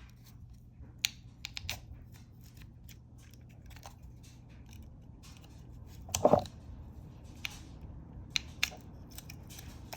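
Small plastic clicks and taps as a Bronco power-window switch is worked out of its plastic trim piece, with one louder, longer scrape about six seconds in.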